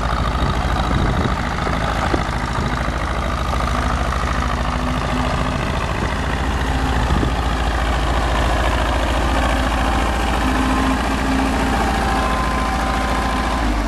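A 1969 International F544 tractor's International C200 four-cylinder gas engine running steadily.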